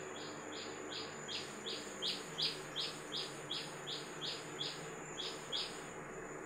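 A bird calling in a rapid series of short, evenly spaced high chirps, about three a second, loudest in the middle and stopping about five and a half seconds in. A faint steady high-pitched tone runs underneath.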